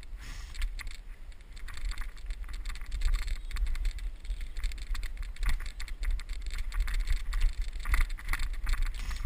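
Mongoose XR-350 mountain bike being pulled at speed over a rough dirt trail. Its frame and parts rattle and clatter irregularly over the bumps, with a steady rumble of wind on the microphone.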